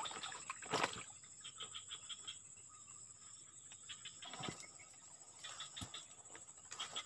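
Steady high-pitched insect drone, with short rapid chattering calls three times. A sharp knock under a second in, and fainter ones later.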